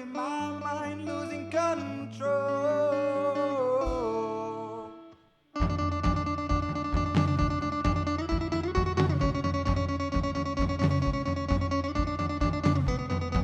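Guitar music. A gliding melody over held guitar notes fades out about five seconds in, and after a short silence a steadily strummed guitar part with a regular beat begins.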